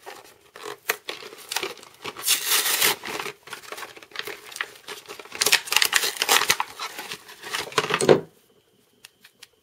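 Plastic and cardboard blister packaging of a two-tube epoxy crinkling and tearing as it is pulled open by hand, a dense, irregular run of crackles and snaps that stops suddenly about eight seconds in.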